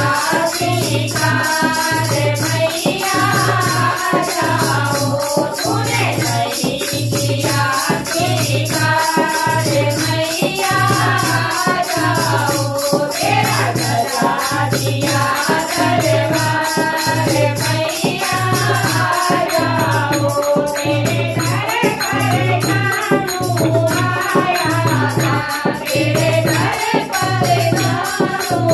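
Women's voices singing a Hindu devotional bhajan together into microphones, over a dholak drum beating a steady low pulse a little faster than once a second and a shaken rattle keeping time.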